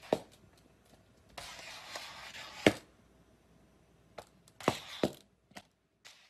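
A cat's plastic cone collar knocking on a tiled floor: a handful of sharp taps and knocks, the loudest about two and a half seconds in, with a stretch of rustling just before it.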